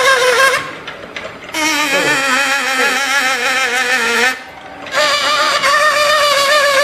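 Savart wheel: a card held against the teeth of a spinning toothed wheel sounds a rich, slightly wavering tone. The tone breaks off about half a second in, returns at a different pitch for a few seconds, then breaks off again and comes back at the first pitch near the end, showing pitch set by the rate at which the teeth strike.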